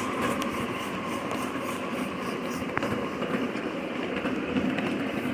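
Steam-hauled train rolling along the track, a steady running and wheel noise, with a single sharp click just under three seconds in.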